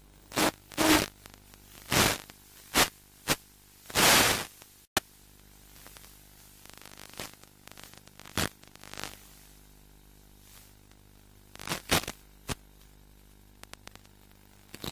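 Irregular bursts of radio static from an analog FPV video link's audio channel, each lasting up to about half a second. They crowd together in the first five seconds and come again a few times later, over a faint steady hum.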